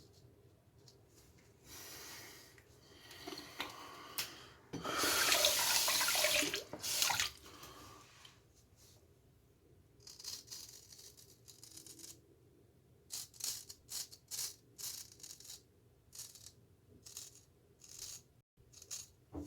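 Tap water running into a sink for a few seconds, loudest about five to seven seconds in, then a string of short scraping strokes, about two a second near the end, from a straight razor shaving stubble.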